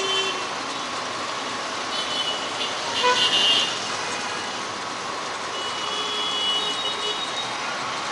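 Busy street traffic with vehicle horns tooting over it: a short high beep about two seconds in, a louder toot about three seconds in, and a longer, fainter one between six and seven seconds in.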